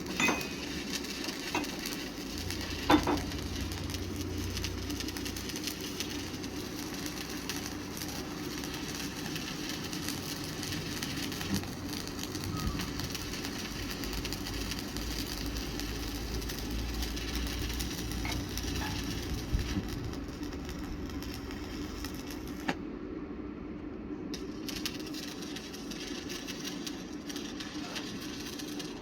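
Arc welding: a steady crackling sizzle over a constant machine hum, with the crackle cutting out briefly about twenty-three seconds in.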